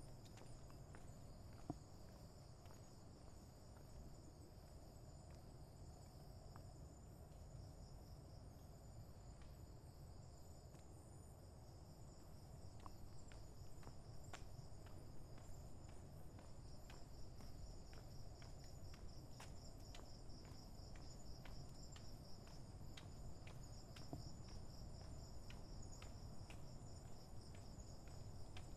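Faint night insect chorus of crickets, a steady high-pitched trilling. From about halfway through, footsteps tick on the path at a steady walking pace.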